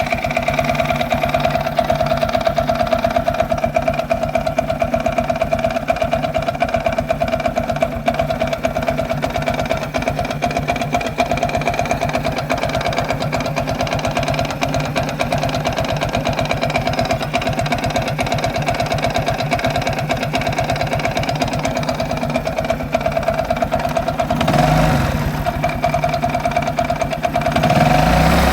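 Viper Active moped's four-stroke engine idling unevenly with a knock, blipped briefly twice near the end. The owner says the knock is not the cam chain tensioner and likens it to detonation.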